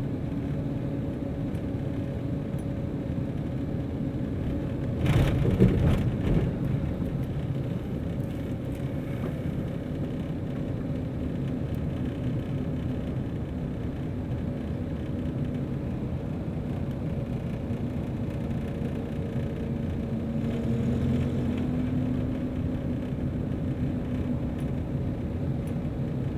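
Steady engine and road rumble of a car driving along, heard from inside the cabin, with a low engine hum running underneath. About five seconds in there is a brief louder swell of rumble that dies away within a second or two.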